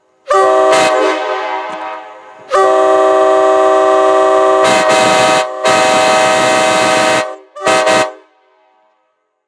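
Multi-chime railroad air horn sounding a chord of several notes over a rush of air. A blast about a third of a second in fades away over two seconds, then a long blast of about four and a half seconds with a brief dip, then a short toot near the end.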